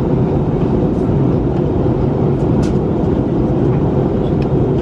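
Steady rumble of airflow and engine noise inside the cabin of an Airbus A321neo airliner in flight, with a faint click or two.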